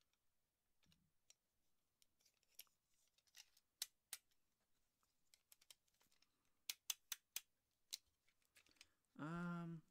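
Scattered sharp, light clicks of a craft knife being handled while its dull blade is swapped for a new one, a few in quick succession around the middle. A man's short hum of voice near the end.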